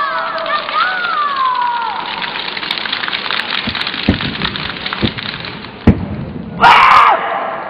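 A southern-staff (Nan Gun) performer's shouts: a long yell falling in pitch at the start and a short, loud shout near the end. Between them come three thuds, the one about six seconds in the sharpest, over a steady crackling hiss.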